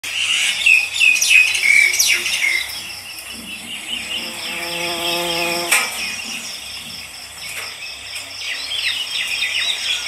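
Birds chirping and insects trilling: a quick run of short falling bird chirps at the start, then a steady high insect trill pulsing several times a second. A brief pitched tone sounds about halfway through.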